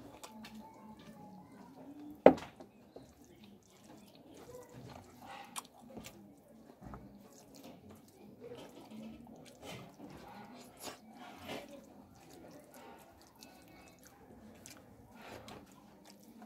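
Close-miked eating sounds: wet chewing, lip smacks and mouth clicks as chicken is chewed off the bone and rice is handled with the fingers, with one sharp, loud click about two seconds in.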